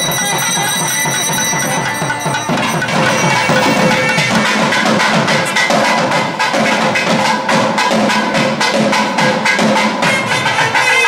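South Indian temple music: rapid thavil drumming with the held reedy tones of nadaswaram pipes, the drumming setting in densely about two and a half seconds in.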